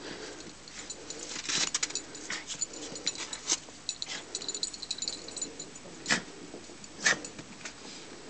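A curly black poodle-type dog scrabbling about in snow with a ball in its mouth: a run of quick crunching and scraping noises, then two short sharp sounds about six and seven seconds in.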